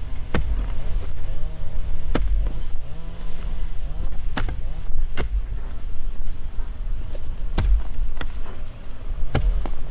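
A hoe chopping into the soil, about five dull strikes at uneven intervals, each a sharp hit with a heavy thud.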